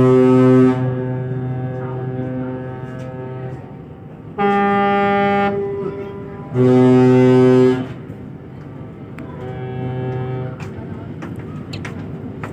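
Ship's horn blasts across the harbour: a long deep blast cutting off just under a second in, a shorter higher-pitched blast around the middle, then another deep blast about a second long, each trailing off in a fading echo over the water.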